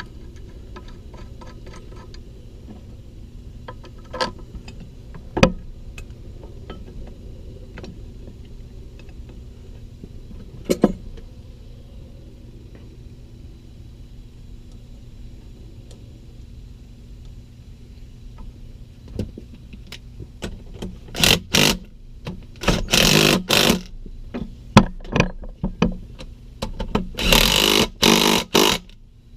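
A few metal clicks and clinks as brackets are fitted to a GM power steering pump, under a steady low hum. In the last eight seconds a power tool runs in several short bursts of a second or two each, driving the bracket bolts.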